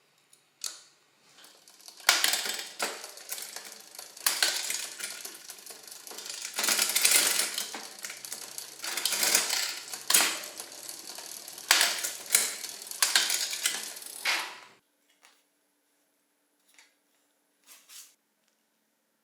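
Rapid metallic clicking and rattling of bicycle parts and tools being worked, for about thirteen seconds in uneven surges, then a few isolated clicks.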